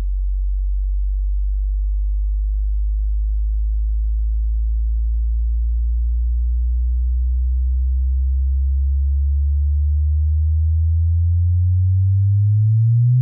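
Low electronic drone made of pure tones, a sonified 'space sound'. It holds steady, slowly rises in pitch, and climbs faster near the end as it starts a steep upward sweep.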